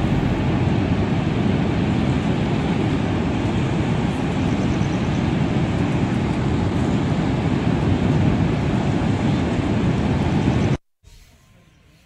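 Floodwater rushing down a large dam's spillway from raised crest gates: a steady, even roar of falling water, heaviest in the low end. Near the end it cuts off suddenly, leaving a much quieter hush.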